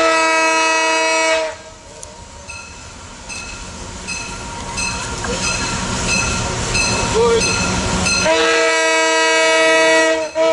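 Diesel locomotive hauling an ore train sounds a long multi-tone horn blast, then its engine rumble grows as it approaches, and it gives a second long horn blast about eight seconds in, with a short toot at the end.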